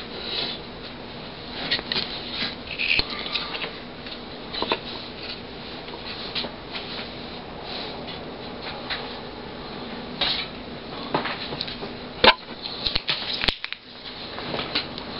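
Handling noise as a TV power-supply circuit board and tools are moved about: scattered light clicks, taps and rustles, with one sharper click about 12 seconds in, over a faint steady hum.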